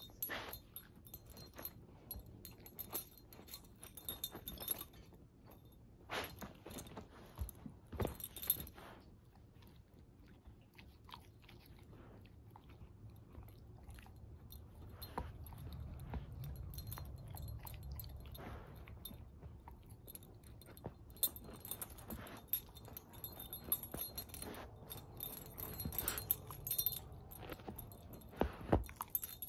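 A shepherd-mix dog chewing and gnawing on a fabric plush toy, with irregular bite clicks. The metal ID tags on her collar jingle now and then, most near the start and near the end.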